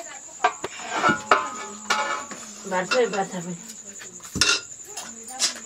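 Steel plates and bowls clinking and knocking during a meal, with a sharp knock about four seconds in, over a steady high trill of crickets.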